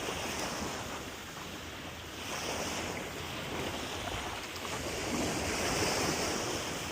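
Steady rushing of wind and surf, with wind buffeting the microphone, swelling and easing a little.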